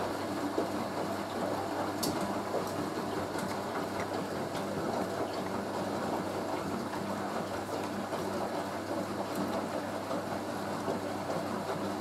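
Hoover A3060 Electronic 1100 washing machine tumbling a wet load of laundry: a steady motor hum under the sloshing and rumbling of the clothes and water in the drum.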